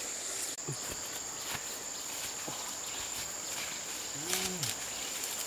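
Steady high-pitched insect drone, with footsteps and rustling of dry cornstalks and leaves underfoot. A brief low hum rises and falls about four seconds in.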